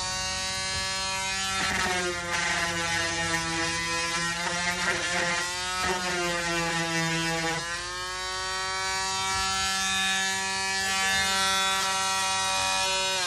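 Corded electric sander running on wood with a steady whine, its pitch dipping and recovering a few times as it is pressed into the work. It starts winding down at the very end as it is switched off.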